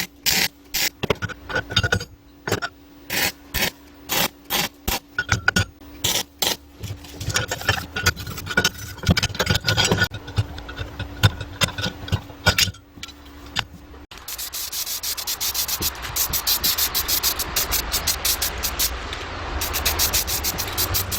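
Hand tool rubbing and scraping on material in repeated strokes, separate and irregular at first. About two-thirds of the way through they turn into a rapid, continuous run, like filing or sanding.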